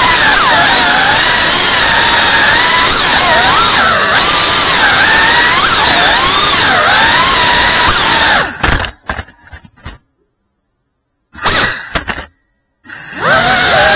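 FPV whoop drone's motors and propellers whining loudly, the pitch wavering up and down with the throttle. Near the end the whine stutters and cuts out twice, dropping to silence before spinning up again.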